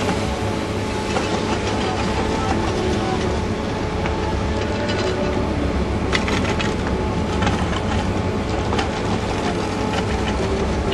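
Ski drag lift machinery running steadily: a continuous mechanical hum with light clattering and scattered clicks.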